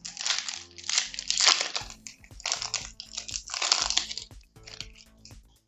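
Foil wrapper of a Pokémon booster pack crinkling as it is handled and opened, in four loud bursts over about four seconds. Background music with a steady beat comes in about two seconds in.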